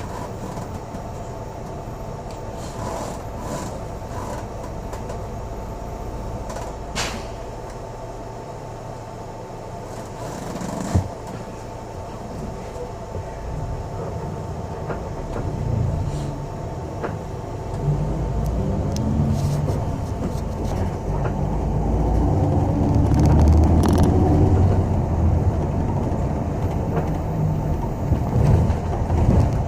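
City bus interior while running: steady engine and road rumble with a few short knocks and rattles. The engine note grows louder from about halfway through, as if the bus is picking up speed.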